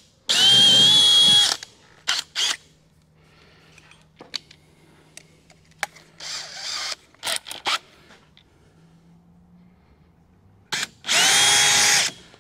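Cordless drill with a long quarter-inch pilot bit running in bursts: a loud steady one-second run just after the start, a couple of quick blips, a softer run midway, and another one-second run near the end, with a few light clicks between.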